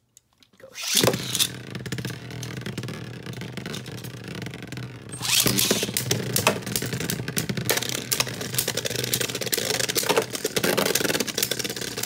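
Two Beyblade Burst tops, Astral Spriggan and Savior Valkyrie, launched into a clear plastic stadium about a second in. They spin with a steady whir and clash repeatedly with sharp plastic clacks, louder from about five seconds in.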